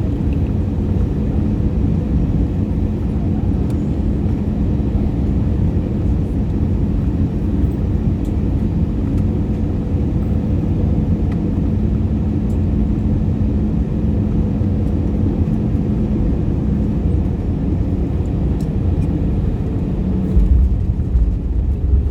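Airbus A319 cabin noise on the approach: a steady rush of engines and airflow with a constant hum underneath. About twenty seconds in, a louder, uneven low rumble sets in.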